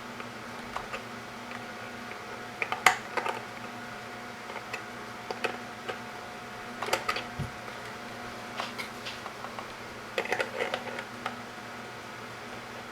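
Scattered light clicks and taps from small parts and tools being handled on a workbench, over a steady low hum.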